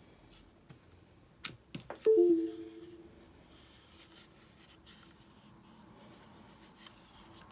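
Mechanical keyboard with lubed vintage Cherry MX Brown tactile switches being typed on: scattered light key clicks, with three sharper keystrokes about a second and a half in. Just after two seconds comes the loudest sound, a hit that rings briefly with a low hum before fading.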